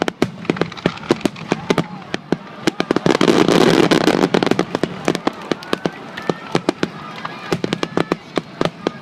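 Aerial fireworks bursting: a rapid crackle of many small sharp pops, with a loud, dense swell of bursts from about three to four and a half seconds in.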